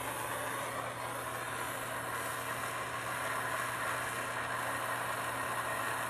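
Handheld gas soldering torch burning with a steady hiss, its flame heating a copper pipe fitting for sweat-soldering. A steady low hum sits underneath.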